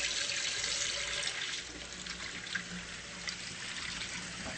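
A water tap running steadily into a sink, with small splashes and drips, as the hot water is run off to check its temperature.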